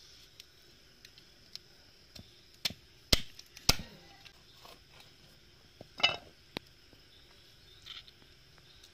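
Scattered sharp knocks and short scrapes of a fish being cut and cleaned against a large iron blade on a wooden chopping board, the loudest knocks a few seconds in and another cluster about six seconds in.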